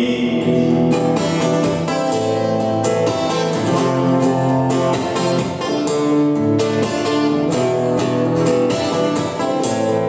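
Instrumental break of a pop song: guitar strumming with a steady beat.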